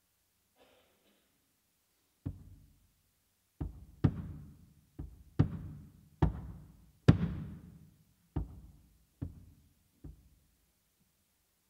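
Bass drum struck about ten times at a slow, irregular pace, each hit ringing out low and dying away in the hall's reverberation; the loudest hit comes a little past the middle.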